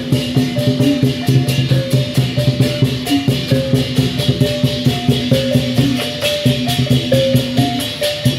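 Street procession music: a repeating stepwise melody over a fast, steady beat of shaken and struck percussion.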